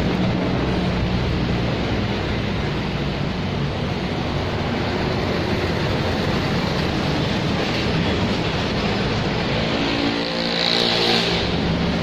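Steady street traffic noise, with a motor vehicle passing louder about ten seconds in.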